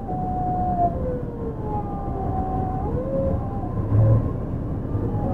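Yui Rail 1000 series monorail car running, its Hitachi IGBT VVVF inverter whining in several tones that slide up and down in pitch over a steady low running rumble, with a low bump about four seconds in.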